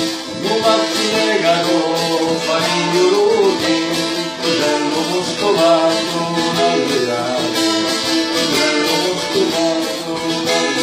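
Traditional Calabrian strina folk music, several instruments playing together without a break.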